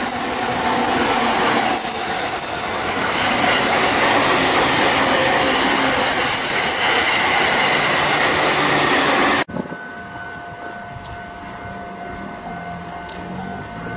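Passenger trains running past close by: loud, steady wheel-on-rail noise with some clatter from an E257 limited express and a green-and-orange-striped commuter train. About nine and a half seconds in it cuts off suddenly to a much quieter stretch with a faint steady hum as another train approaches.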